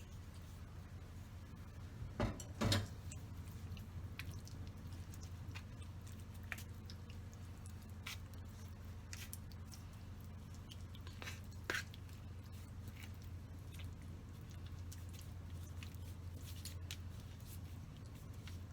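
Quiet food-preparation handling noises: scattered soft clicks and taps, with two louder knocks close together about two seconds in and another near the middle, over a steady low hum.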